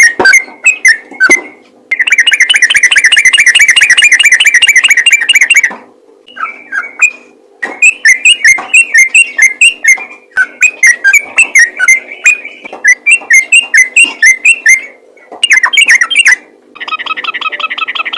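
Yellow-vented bulbul (trucukan) singing in full song: quick runs of bubbly, whistled chirps. A long fast trill runs from about two seconds in to about six, then comes a short pause and more chirping phrases, and a new rapid trill starts near the end. A faint steady hum runs underneath.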